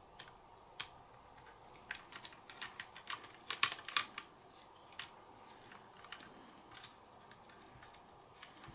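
Scattered light clicks and taps of small hard parts of a radio-controlled model car being handled, with a quick cluster of them about three to four seconds in.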